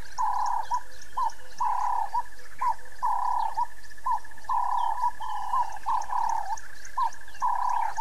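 Wildlife chorus from a waterhole: repeated warbling calls, each a longer note with short upswept notes around it, over a continuous buzzing trill and a fast high ticking.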